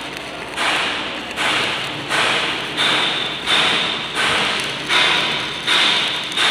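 Shielded metal arc (stick) welding with a 3.2 mm E7018 (LB-52) low-hydrogen electrode: the arc's crackling hiss, loud and surging about every 0.7 s, each surge starting suddenly and fading.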